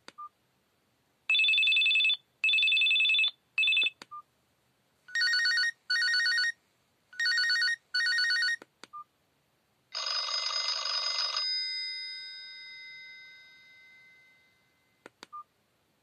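Built-in ringtones of a Blaupunkt BS 02 mobile phone previewing one after another as the menu is scrolled: first a trilling, bell-like electronic ring in three bursts, the last cut short; then a second trill in two pairs of bursts; then, about ten seconds in, a single chiming ring that fades over several seconds. Short key clicks and beeps come between the ringtones.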